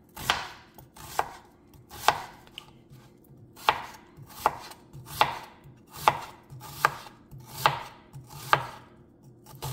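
Chef's knife slicing half an onion on a cutting board, the blade knocking on the board with each cut at a slow, steady pace of about one cut a second.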